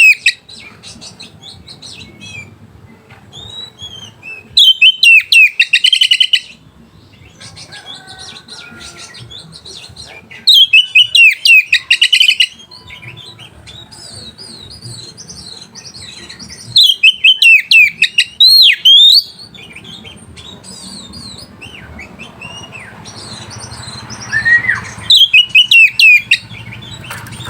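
Oriental magpie-robin singing a loud, aggressive song meant to rouse rival males. It comes in four bursts of fast, repeated high notes, each about two seconds long and roughly six seconds apart, with softer twittering between them.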